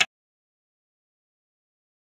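Dead silence: the sizzling and stirring of the pot cuts off abruptly at the very start, and nothing at all is heard after it.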